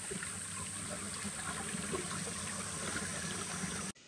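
Shallow creek water rippling and splashing over rocks in a riffle, a steady rush that cuts off suddenly near the end.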